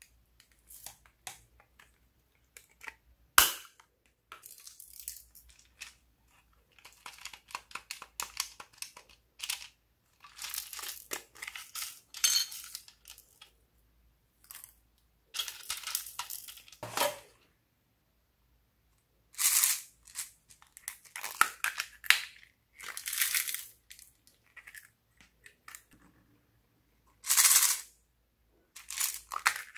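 Slime being squished, stretched and kneaded by hand: irregular bursts of sticky clicking, popping and crackling with short pauses between them, and a sharp snap about three seconds in.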